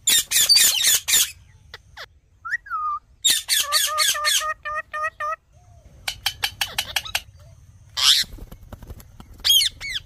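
Indian ringneck parakeets squawking and chattering: a burst of harsh rapid calls at the start, a quick run of repeated chattering calls in the middle, then a shrill screech and rising-and-falling whistled calls near the end.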